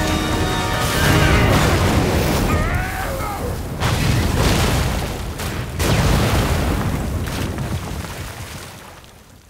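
Film sound-effect explosions from an animated action scene: three heavy booms about a second, four and six seconds in, each with a deep rumble, the last dying away near the end.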